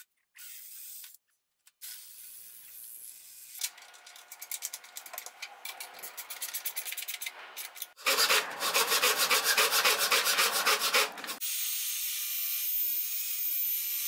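A hand tool rubbing back and forth along the edge of a plywood backing board, in strokes of about four a second that grow louder. About eight seconds in it switches to a much louder, faster rasping for a few seconds, followed by a steady hiss.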